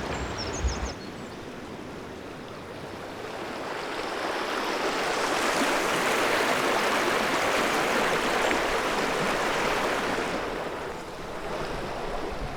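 Stream water rushing and babbling steadily, growing louder partway through and easing off again near the end. A short thump of wind or handling rumble on the microphone about a second in.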